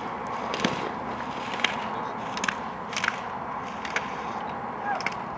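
Slalom gate poles clacking as a racing skier knocks them aside, a sharp clack about once a second, over a steady hiss.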